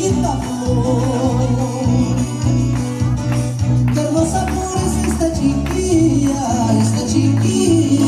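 Peruvian folk music: acoustic guitar with percussion clicks keeping the beat.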